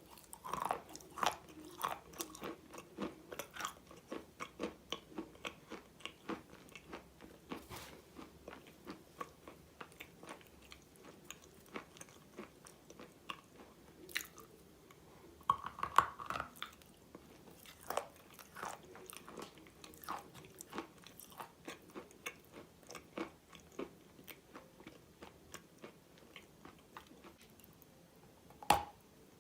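Close-miked biting and crunchy chewing of chalk-type mineral pieces coated in clay paste. There are sharp bites about half a second in, about halfway through and near the end, each followed by a run of quick, quieter crunching chews.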